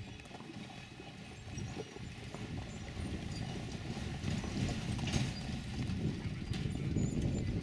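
Hooves of carriage horses clip-clopping on a dirt track, with the rumble of the carts' wheels, growing steadily louder as they come closer.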